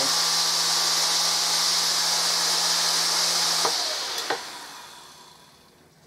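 Hoover Dustette vacuum cleaner's brushed motor with its fan, freshly rebuilt with new carbon brushes, running bare at about 16,500 rpm with a smooth, steady whine and hum, a sign of a healthy armature. A little over halfway through it is switched off with a click, and it winds down and fades out over the last two seconds.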